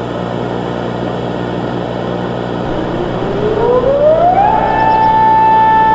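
Air-raid siren winding up: a single wailing tone rises in pitch from about three seconds in, then holds steady. Under it, a steady hiss with a low hum.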